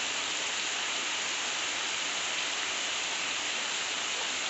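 Steady rain falling on a street, an even hiss with no let-up.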